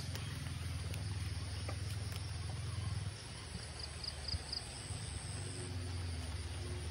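Baitcasting reel being cranked on a lure retrieve: a steady low whirr of the gears, with a sharp click at the start.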